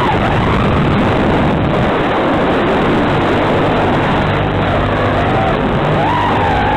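Loud, steady hiss on the analog FPV video link's audio. Under it, a faint whine from the HGLRC XJB-145 quadcopter's motors rises and falls in pitch with throttle, most noticeable near the end.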